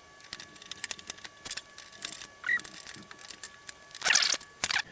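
Small metallic clicks and rattles of a screwdriver and screws being worked into motherboard standoffs in a PC case, with a louder clatter about four seconds in.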